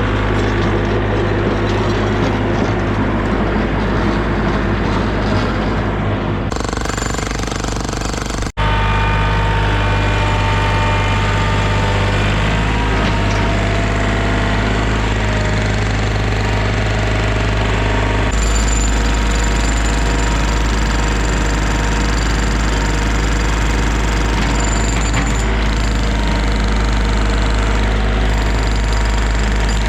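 Tractor engine running steadily under load while digging out soil, with a constant rattle over the engine. The sound changes abruptly a few times, about six, eight and eighteen seconds in.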